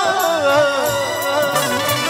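Bhojpuri song sung live through the stage sound system: a singer holds one long wavering note that slowly falls, over instrumental accompaniment.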